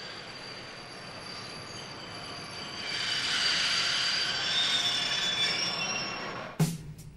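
High-pitched metallic squeal with a hissing edge and thin ringing tones. It swells about three seconds in and eases off, then a sharp drum-like hit comes near the end.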